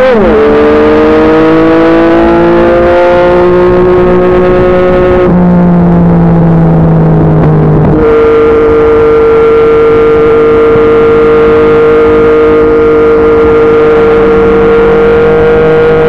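Yamaha MT-09's three-cylinder engine through a Yoshimura R55 slip-on exhaust, pulling through a gear with its pitch climbing. The pitch drops sharply about five seconds in, steps back up about eight seconds in, and then holds one steady note.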